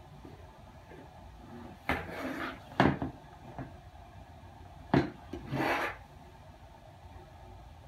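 Football helmet being handled at a sink: sharp knocks of the helmet and facemask against a hard surface, with brief rubbing sounds, in two clusters about two and five seconds in.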